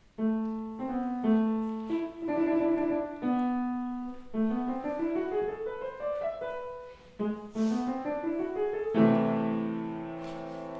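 Piano playing a short melody of single notes and rising runs, ending on a chord about nine seconds in that is left to ring and slowly fade.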